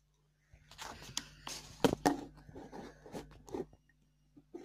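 Close handling noise: irregular rustling and scraping with a few sharp clicks and knocks, starting about half a second in and dying away near the end.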